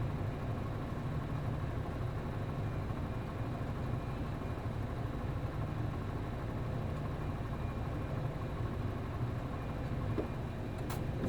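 The bus's MD92TJ diesel engine idling steadily, heard inside the cabin, with a low even hum. A short click near the end.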